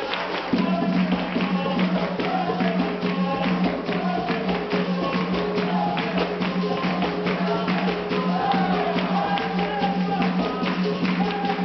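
Capoeira roda music: berimbaus and a pandeiro over rapid hand-clapping, with group singing.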